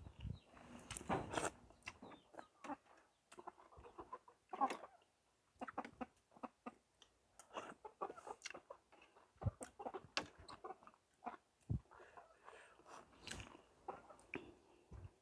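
A person eating at close range: slurping spoonfuls of soup and noodles and chewing, heard as irregular short slurps, lip smacks and clicks.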